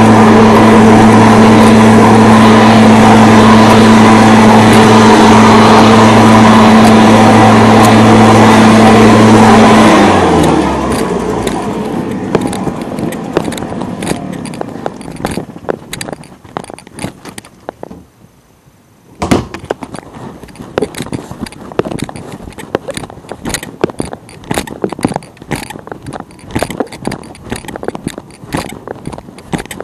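An engine running loud and steady at a constant speed, then shut off about ten seconds in, its pitch sinking as it winds down. After that come light irregular clicks and jingling like keys, with a short lull and then a sharp click.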